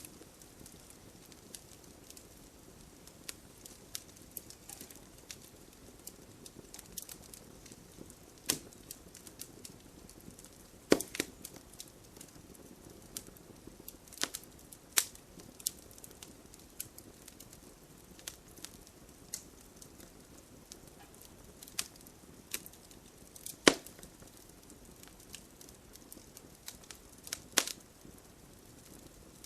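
Wood fire burning in a fireplace: a soft steady hiss with constant small crackles and a few louder sharp pops, the loudest a little past the middle.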